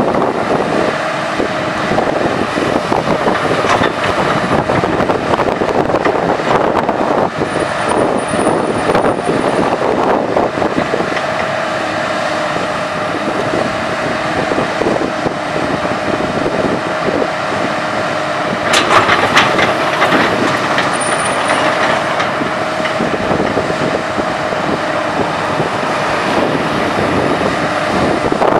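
Komatsu PC200 hydraulic excavator working: its diesel engine running under load with a steady hydraulic whine, and intermittent clattering, loudest in a burst about two-thirds of the way in.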